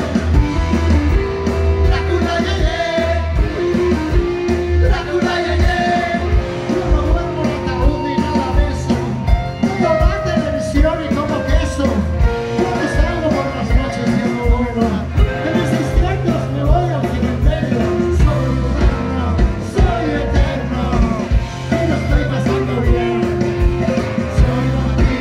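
Garage rock band playing live: distorted electric guitars, bass guitar and drum kit driving a steady beat, with a lead vocal over it.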